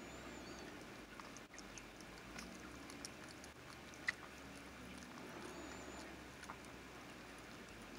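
Small mother dog licking and nibbling at her newborn puppy: soft mouth sounds with many small clicks, and one sharper click about four seconds in.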